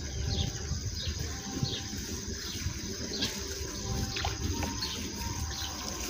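Water running and trickling steadily at a small pond's outflow, with short high chirps of birds repeating every half second or so.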